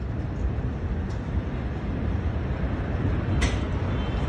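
Deep, steady low rumble in the wake of a massive explosion, picked up by a phone's microphone, with one short sharp click about three and a half seconds in.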